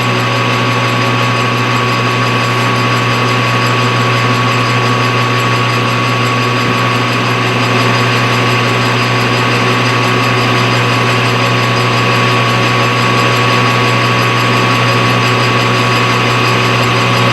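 A machine tool running steadily while taking light cuts to thin a thick coaster blank to thickness, with a steady low hum and a steady high whine from its gearing.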